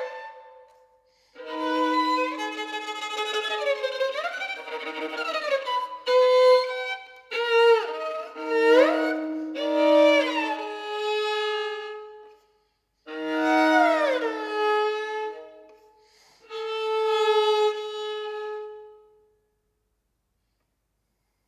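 Solo violin playing a contemporary piece: short phrases of sliding pitches over held double notes, separated by brief pauses. It falls silent about two seconds before the end.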